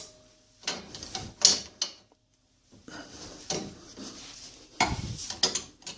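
Metal hand tools clinking and scraping against a car's front wheel hub assembly, in a few short bursts, the loudest about five seconds in.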